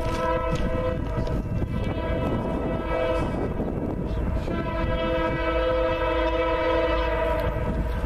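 Air horn of an approaching Union Pacific EMD GP40-2 locomotive sounding a chord of several notes: one long blast that breaks off about three seconds in, then after a pause of about a second a second long blast that stops shortly before the end. A steady low rumble runs underneath.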